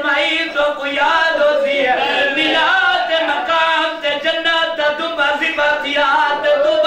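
A zakir's mourning recitation (zakiri): one man's loud, impassioned voice, half-chanted and half-sung, with pitch sliding up and down and hardly a pause, amplified through a microphone.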